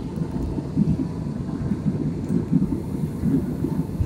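Airliner cabin noise in flight: the low rumble of jet engines and airflow, wavering in strength.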